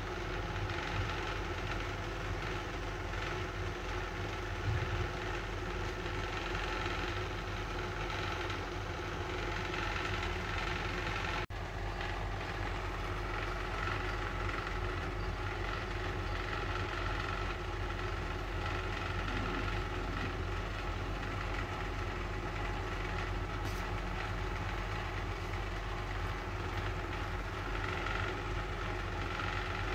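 Steady, unchanging low machine hum, like a motor running, that drops out for an instant about eleven and a half seconds in.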